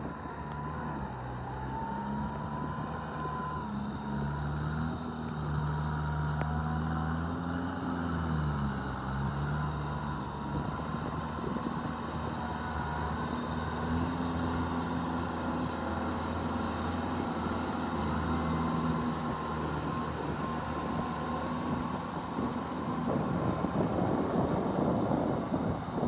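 Kubota M6240SUH tractor's diesel engine running under load as it works a flooded paddy. The engine speed rises briefly and drops back about eight seconds in, then holds steady. A rougher rushing noise builds near the end.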